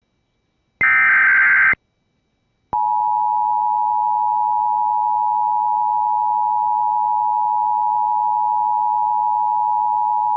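Emergency Alert System tones. About a second in comes a one-second screech of SAME digital header data. After a brief gap the steady two-tone EAS attention signal (853 and 960 Hz) starts and holds unchanged for about eight seconds. The tones warn that an emergency alert broadcast is about to follow.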